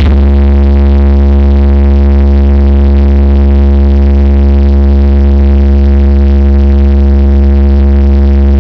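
A huge carnival sound system playing one sustained low bass tone, very loud, held dead steady with a dense stack of distorted overtones above it.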